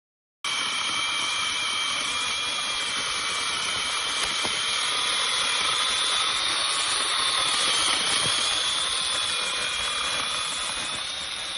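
SEESII mini cordless chainsaw with brushless electric motor running, a steady high whine over a hiss of the spinning chain. It cuts in abruptly and holds, the whine dipping slightly in pitch about eight seconds in.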